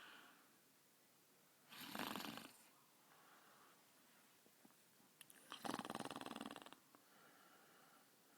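Basset hound snoring in its sleep. Two loud snores come about two and six seconds in, each followed by a fainter breath; the second snore is longer, with a fast flutter.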